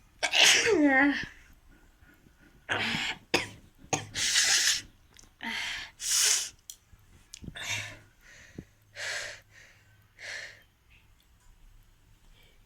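A person sneezing over and over. It starts with one loud voiced sneeze whose pitch falls away, then comes a run of about seven shorter, hissy sneezes spaced roughly a second apart.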